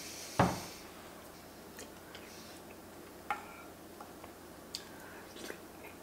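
A single solid knock on the table about half a second in, followed by a few light clicks of a metal spoon against a ceramic soup bowl as tomato soup is spooned up.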